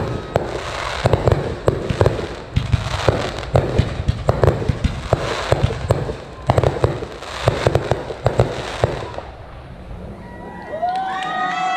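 Aerial firework shells bursting in quick succession, sharp bangs mixed with crackling, stopping about nine seconds in. Near the end a crowd starts cheering, whooping and whistling.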